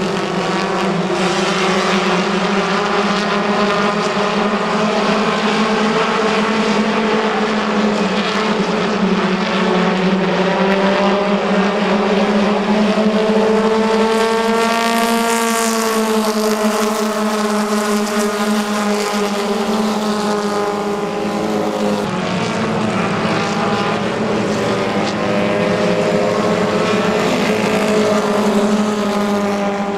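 Several stock car engines running hard around a short oval. About halfway through, one engine grows louder and its pitch rises then falls as a car comes close.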